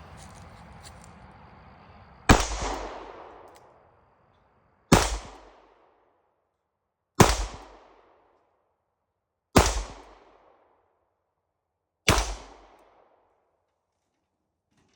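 Five shots from a Smith & Wesson Model 12 .38 Special revolver, about two and a half seconds apart. Each is a sharp bang that fades out in an echo over about a second.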